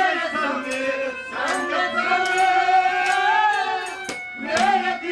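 Live Haryanvi ragni: a male voice singing with long held, wavering notes over drum strokes and a steady instrumental drone.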